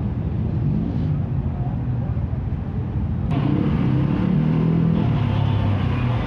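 Motocross bike engines running in the paddock, their pitch wavering up and down. The sound steps up louder about three seconds in.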